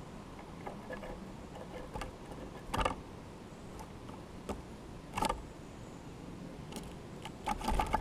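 Downy woodpecker pecking at seed on a log right by the microphone: scattered light clicks of the bill, with louder clusters of knocks about three seconds in, about five seconds in and near the end.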